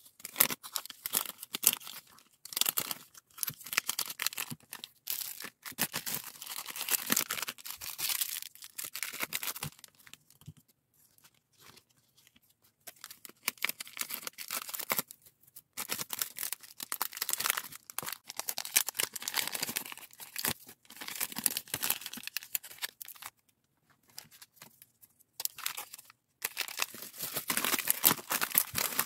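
Thin clear plastic packaging bags crinkling and rustling as hands handle them and slip small items inside, in bursts with a few brief pauses, the longest about a third of the way in.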